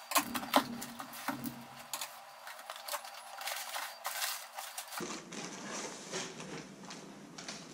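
Cardboard shipping box being opened by hand: flaps rustling and scraping, with many scattered clicks and taps as the packing and contents are handled.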